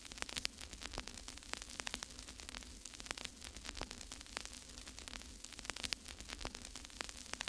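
Faint crackling static: irregular sharp clicks, several a second, over a soft hiss and a low steady hum.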